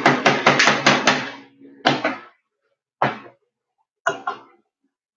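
Wire hand whisk clattering against a stainless steel mixing bowl as egg whites are mixed into a flour batter. There is a quick run of about seven strokes, then three single knocks spaced about a second apart.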